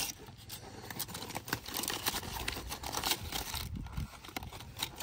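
Aluminium foil crinkling and rustling in irregular bursts as hands dig into and crumple a foil packet.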